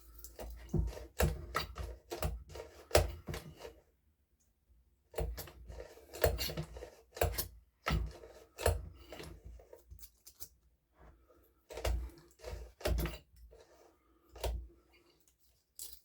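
Irregular clicks, knocks and light metal clatter of hand tools and small engine parts being handled on a workbench, with two short pauses.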